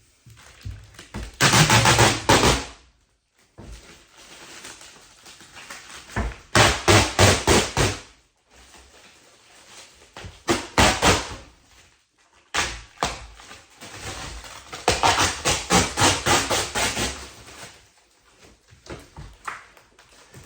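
Hands working on a kitchen cabinet door: four bursts of rapid clicking and crackling, each lasting a second or two, with quieter handling noise between them.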